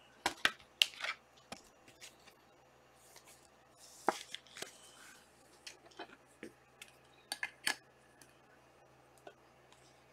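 Panini Select trading cards being handled and flipped through: scattered light clicks and taps, with a cluster of louder ones in the first second and another about three quarters of the way through.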